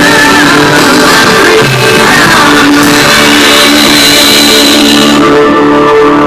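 Loud music with a singing voice over held instrumental chords; the voice fades out in the second half.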